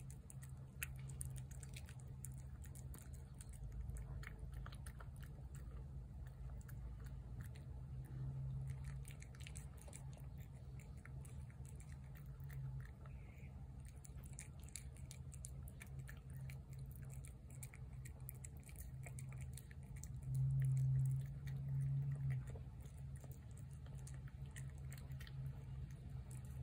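A domestic cat chewing food from a plate: a steady run of small clicks as it eats. Underneath is a steady low hum that swells for a couple of seconds about twenty seconds in.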